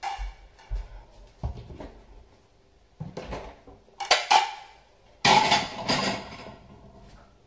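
Dishes and silverware clinking and clattering as a dishwasher is emptied: a string of separate knocks, with the loudest clatter about five seconds in.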